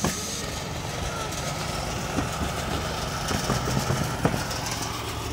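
Engine-driven air compressor running steadily with a pulsing low rumble, with a sharp knock right at the start and another about four seconds in.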